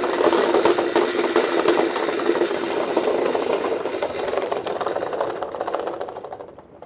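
Wacker Neuson high-frequency external concrete vibrator running loose on a rubber mat: a steady electric motor hum with a fast, loud rattle as the unit shakes. It winds down and fades out near the end.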